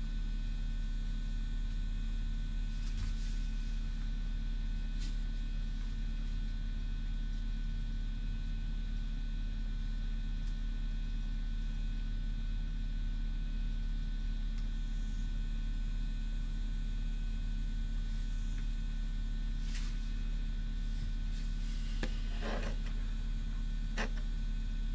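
Steady electrical mains hum, low and constant with a few thin steady tones above it. A few brief clicks and, about 22 seconds in, a second-long scratchy rustle.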